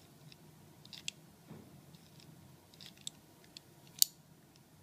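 Scattered light metallic clicks of a key turning a mortise cylinder in a mortise lock body, its cam pulling back the locking plate and retracting the latch. The sharpest click comes about four seconds in.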